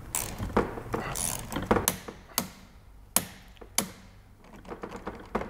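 Hand-work on a low-voltage cable link pillar: several separate sharp clicks and knocks of hard plastic and metal parts and a hand tool at irregular intervals, as perspex covers and connectors are fitted.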